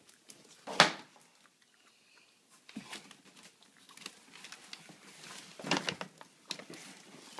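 A sharp knock about a second in, then rustling, scraping and light knocks as a cardboard box is handled and rummaged through.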